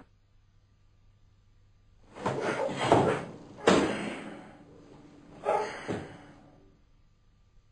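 Bodies thudding and scuffling on a wooden parquet floor during close grappling: a run of heavy thumps from about two seconds in to about six seconds in, with the loudest near the middle.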